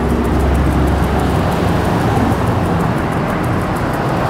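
Road traffic on a town main street: cars driving past, with one vehicle's low engine rumble loudest in the first second or so, then easing off.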